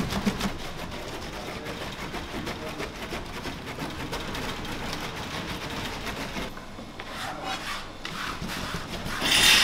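Large knives chopping and mincing red and green peppers and parsley on a cutting board: a dense rasping of blades rubbing and tapping on the board, with a louder scrape near the end.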